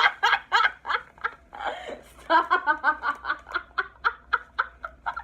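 A woman laughing hard, a long run of quick pitched ha-ha pulses, several a second.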